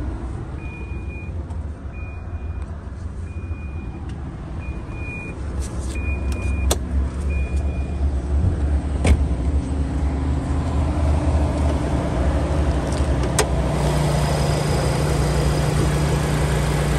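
Subaru twin-turbo boxer (flat-four) engine idling. Over it, the door-open warning chime beeps in short tones about a second apart and stops about eight seconds in; a few sharp knocks follow. From about fourteen seconds the idle is heard closer and louder, as a steady hum.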